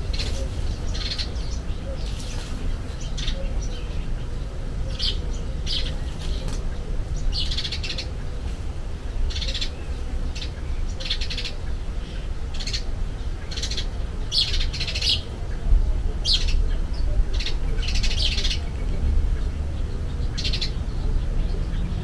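Azure-winged magpies calling with short, harsh, raspy notes, about one a second at an uneven pace, over a steady low rumble.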